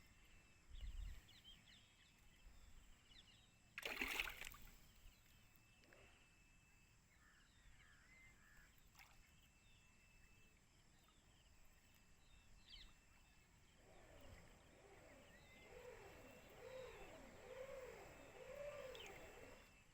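Quiet open-air waterside ambience with faint bird chirps and calls. A brief splash comes about four seconds in, and a lower, wavering call repeats about once a second near the end.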